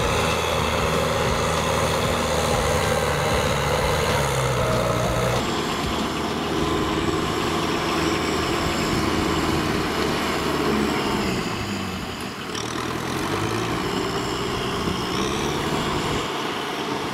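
Kubota M6040SU tractor's diesel engine running under load while the tractor churns through deep paddy mud. Its pitch rises and falls several times in the second half.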